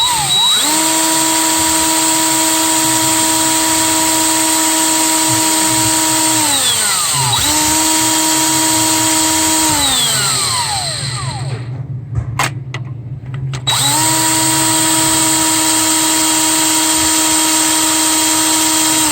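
Power drill running at a steady speed in three long runs while drilling out a stuck EGR bolt on a 6.7 diesel engine, the motor's pitch falling as it winds down at the end of each run.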